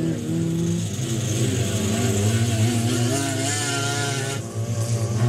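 Several race-car engines running at once on a dirt track, their pitch rising and falling as the drivers rev up and ease off.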